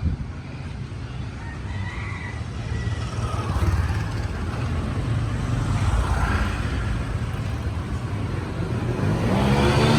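Motorbike engine running, its exhaust note growing louder toward the end as a strong pitched drone builds.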